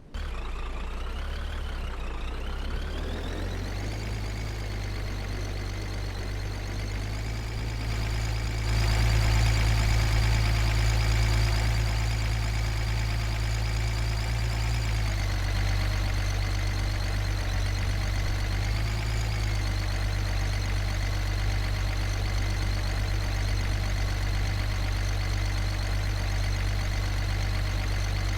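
A vehicle engine running steadily, its pitch rising over the first few seconds and then holding level, louder for a stretch in the middle.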